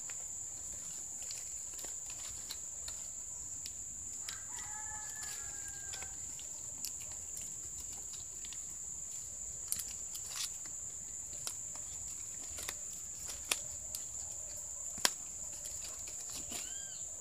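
Coconut palm fronds rustling and crinkling with scattered light clicks as they are woven by hand into a basket bottom, over a steady high-pitched insect drone. A rooster crows faintly about four seconds in, and a bird chirps near the end.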